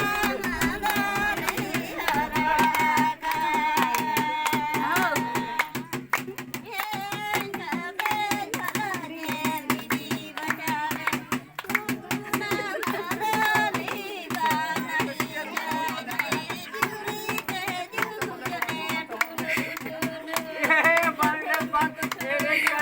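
Music: a song with singing over plucked strings and a fast, dense drum beat.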